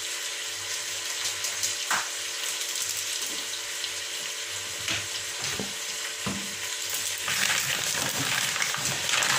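Sliced bitter gourd (ampalaya) and prawns sizzling in a pot, with a few light knocks partway through; the sizzling grows louder near the end.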